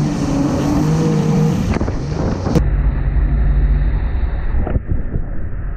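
Jet ski engine running at speed, a steady pitched drone, with wind buffeting the microphone and water rushing. About two and a half seconds in the sound changes abruptly and the engine tone gives way mostly to low wind rumble.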